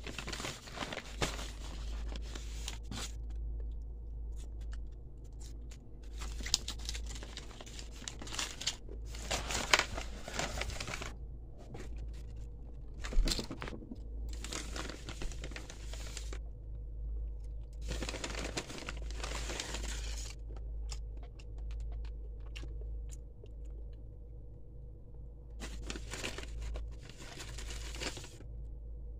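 Paper takeout bag crinkling and rustling in several separate bursts of a second or two as a hand opens it and rummages inside, with one sharp knock about midway through.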